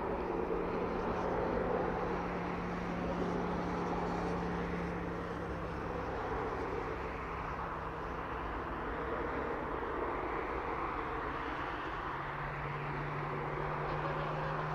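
Gulfstream G550's Rolls-Royce BR710 turbofan engines running at taxi power, a steady rushing jet noise. A low steady hum underneath fades about halfway through and returns slightly lower near the end.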